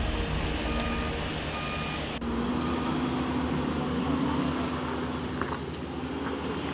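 Construction machinery running, with two short beeps of a reversing alarm about a second and a half in, then the steady engine hum of a Bobcat skid-steer loader.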